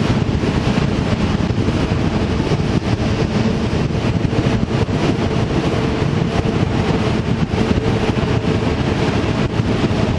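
A vehicle on the move, with steady wind noise buffeting the microphone over a low running hum.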